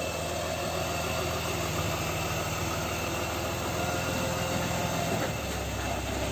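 Dodge Sprinter van's engine running at low speed as the van creeps into a driveway; its low rumble gets heavier about five seconds in.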